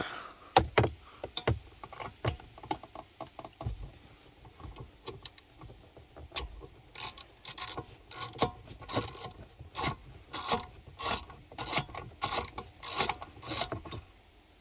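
Hand ratchet turning fasteners loose in short strokes: irregular at first, then a steady rhythm of about two strokes a second from about six seconds in.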